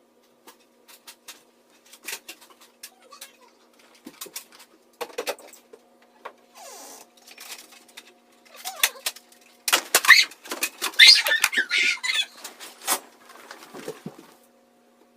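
A run of sharp clicks and knocks, with a few short high squeaks, and a dense burst of loud clatter and rustling about ten seconds in.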